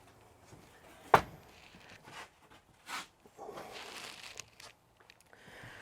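Handling noise: a sharp click about a second in, a softer click near three seconds, and some rustling between them.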